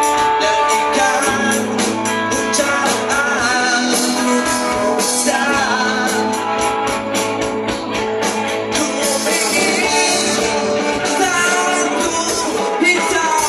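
Rock song played by a band: drums keeping a regular beat under guitar, with a voice singing.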